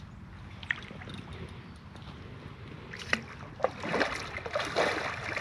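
Water splashing and sloshing, starting about three seconds in and growing louder: a large hooked common carp thrashing at the surface as it is played in close.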